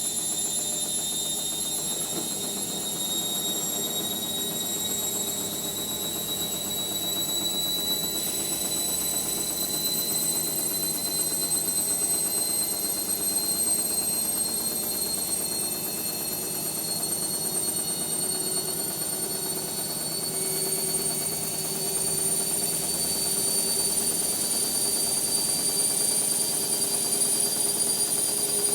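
Indesit MyTime washing machine spinning, its motor giving a high whine that climbs slowly and steadily in pitch over a lower drum hum as the spin speed builds.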